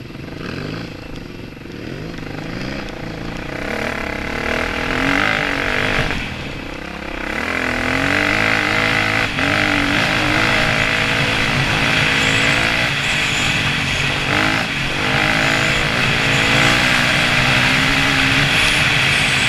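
Enduro dirt bike engine heard from on board while riding a dirt track, the revs rising and falling again and again. There is a steady rush of wind and tyre noise, and it grows louder over the first several seconds.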